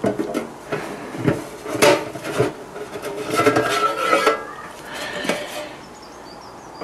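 Sheet-metal cover of a hot air rework station being worked loose and lifted off its chassis. There are several metallic knocks and clanks, then a scraping with a faint ringing squeal as the cover slides off, and one more knock a little later.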